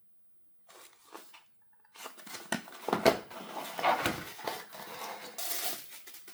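Packaging being handled and opened by hand, with rustling, crinkling and tearing. A few short rustles come about a second in, then dense handling noise runs on from about two seconds in.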